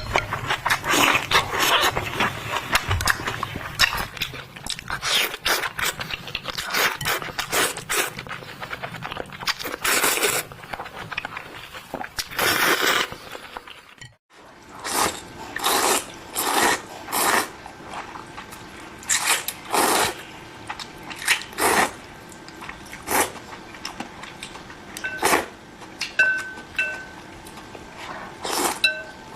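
Close-up mouth sounds of a person eating Korean instant noodles, chewing and slurping with wet clicks. A dense run of these sounds breaks off about halfway through. After that come separate short chews or slurps, roughly one a second.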